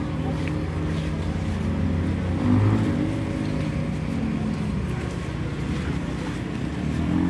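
Motor vehicle engine running steadily, its pitch rising about two and a half seconds in and again near the end.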